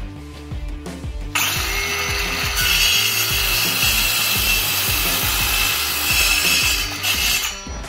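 INGCO 20 V cordless circular saw with a 5½-inch, 24-tooth blade starting up about a second and a half in, with a short rising whine, then cutting through a clamped wooden board for about six seconds before stopping near the end.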